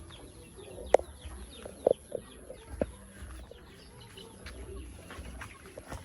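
Chickens clucking, a few short loud clucks in the first three seconds, with small birds chirping faintly behind.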